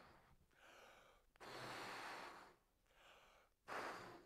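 A man blowing up a rubber balloon by mouth: faint breaths, blowing air into the balloon and breathing in between, about four in all.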